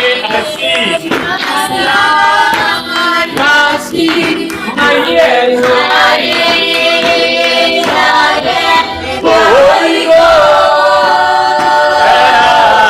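Group of voices singing a gospel song, holding and sliding between sustained notes.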